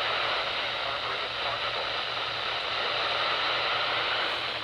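Steady radio static: an even hiss from a radio receiver between transmissions, with a low hum underneath.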